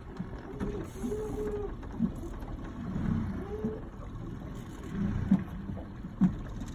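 Low rumble of a boat on the river, with a few sharp knocks about two, five and six seconds in.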